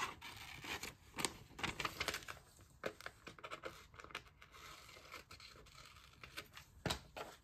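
Magazine paper being handled: short, irregular crisp rustles and crinkles, with the sharpest sounds about a second in and near the end.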